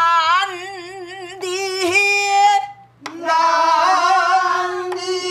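A woman singing a pansori phrase in a full, open voice with a wide, wavering vibrato on long held notes. After a brief break about three seconds in, the phrase is sung back with a long held note, the class repeating it.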